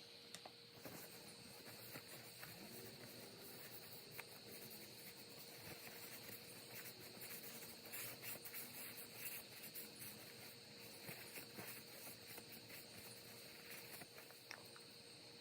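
Faint, irregular light clicks and ticks, thickest around the middle, over a steady high-pitched whine.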